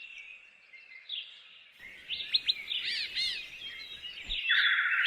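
Birds chirping and calling: short whistled notes and quick up-and-down chirps, thickest in the middle, then a rapid buzzy trill near the end.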